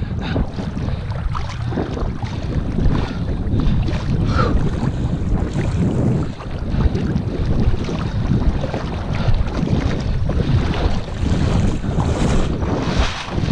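Wind buffeting the microphone: a loud, steady low rumble with irregular gusts.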